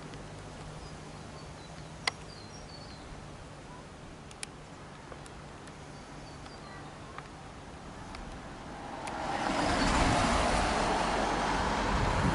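Quiet outdoor background with faint bird chirps and a couple of sharp clicks. About nine seconds in, a loud rushing noise swells up and holds.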